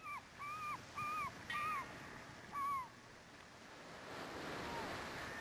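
Five short, arched bird calls in quick succession, then a wash of surf that swells in the second half.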